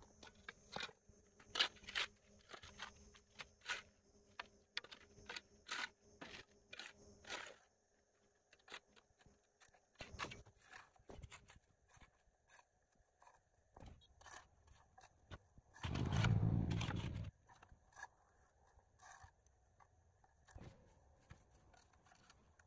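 Shovel scraping and knocking on the concrete road surface as mud and debris are cleared, a quick run of short scrapes at first, then fewer and more spaced out. About two-thirds of the way through comes a louder, lower rumble lasting a second or so.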